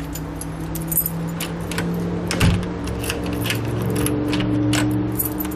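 Keys jangling and clicking against a deadbolt lock, with a steady low hum underneath.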